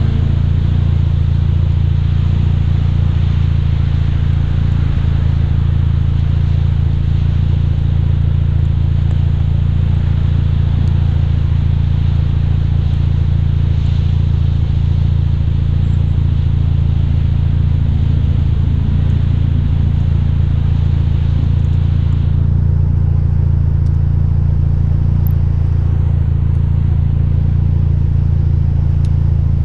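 Car engine running at a steady speed through an AWE Track aftermarket exhaust on a stock downpipe: a constant deep drone with no revving. A higher hiss over it drops away about 22 seconds in.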